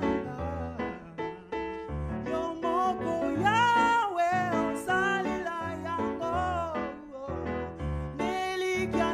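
A man singing a gospel song solo into a microphone with vibrato, over a keyboard accompaniment of sustained chords and bass notes.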